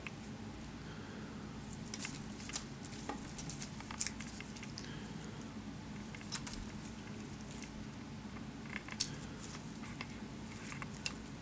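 A cat scrabbling about on a wooden rocking chair with a woven cane seat while playing with a ribbon: scattered light scratches, clicks and rustles of claws on the cane and wood and the ribbon moving, with a couple of sharper clicks about four and nine seconds in.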